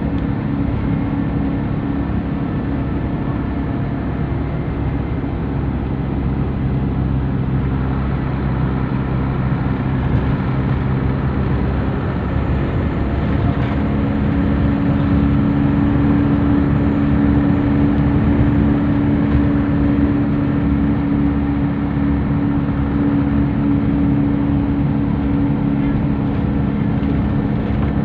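Scania K124EB coach's rear-mounted straight-six diesel running under way, with road noise, heard from inside the passenger cabin. About halfway through, a steady engine hum comes up strongly and the noise grows a little louder.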